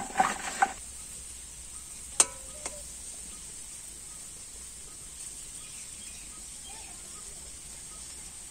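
A metal spatula clatters and scrapes in an iron karai of cubed vegetables frying in oil, with a sharp ringing tap on the pan about two seconds in; after that only a low, steady sizzle.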